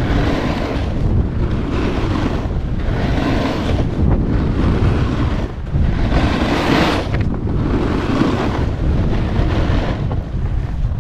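Wind rushing over the microphone while a snowboard slides and scrapes over groomed snow, the rushing swelling and fading every second or so through the turns.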